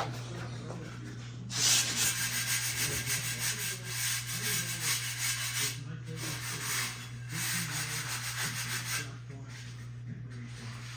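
Mitre saw cutting through a workpiece at a 45° angle: a rasping, abrasive cutting noise that starts suddenly about a second and a half in, briefly dips twice, and stops about two seconds before the end, over a steady low hum.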